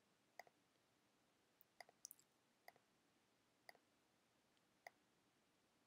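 Near silence broken by about seven faint, sharp computer mouse clicks at irregular intervals, a couple of them in quick pairs.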